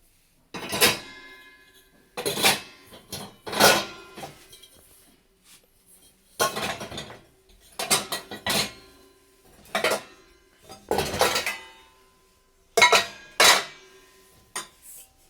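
Metal kitchen vessels, ladles and spoons clattering and clinking as they are handled and set into dishwasher racks: about ten separate clatters, each leaving a short metallic ring.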